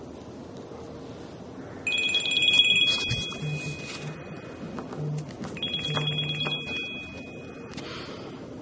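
Smartwatch ringing as a call is placed: two electronic ring tones of about two seconds each, the first starting about two seconds in and the second a little over a second after the first ends.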